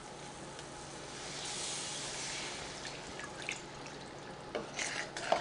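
Milk being poured from a glass measuring cup into a hot butter-and-flour roux in a stainless steel skillet: a soft, hissing pour of liquid, strongest about a second and a half in, with a few short clicks of a spoon against the pan near the end.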